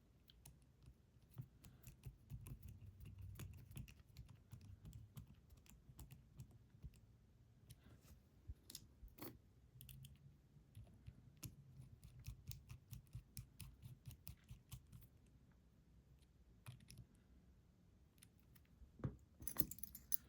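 Faint, scattered small clicks and taps of metal lock parts being handled while the lock is put back together, with a run of louder clicks near the end.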